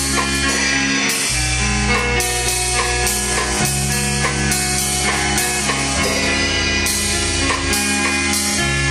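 Instrumental intro of a band song: guitar, bass and drum kit playing at a steady beat, with the bass notes changing every second or two.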